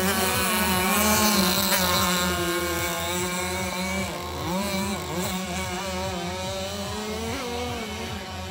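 Small engines of radio-controlled model racing boats running at speed on the water, their pitch rising and falling as the boats race and turn.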